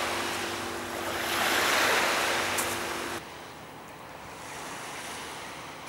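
Small waves washing up the beach, a rushing hiss that swells about two seconds in, with some wind on the microphone. About three seconds in it drops abruptly to a quieter, steadier wash.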